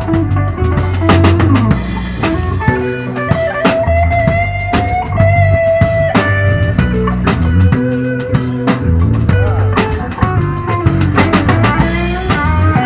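Live funk-rock band playing an instrumental passage: drum kit keeping a steady beat under an electric guitar lead, with a long held guitar note in the middle and bent notes near the end.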